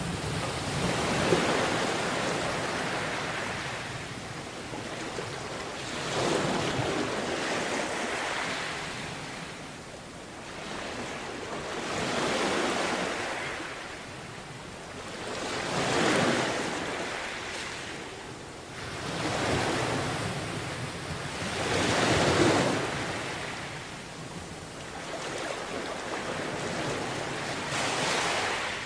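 Sea waves breaking and washing up on a beach, the surf swelling and fading every few seconds.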